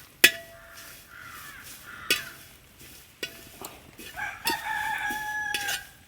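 A rooster crows once in the background, one long held call of about a second and a half starting a little past the middle. Around it, a few sharp clinks of stirring in a metal uruli.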